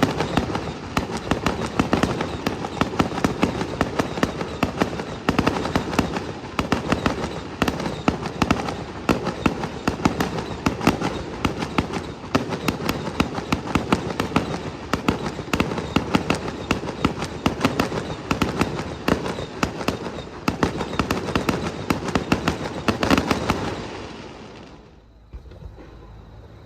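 Aerial fireworks display: a dense, continuous barrage of shell bursts and crackling, many reports a second, that dies away about 24 seconds in, leaving only faint background sound.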